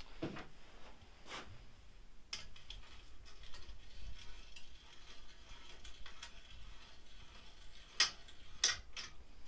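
Stainless steel screws being wound in by hand with a driver at a hydrofoil's mast-to-fuselage connection: faint, quick metal ticks, with a few sharper clicks, the loudest two close together near the end.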